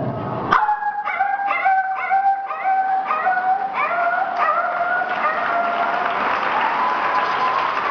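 A sharp hit, then a long, wavering howl like a dog's or wolf's, produced as a stage sound effect. Audience applause builds under it from about halfway through.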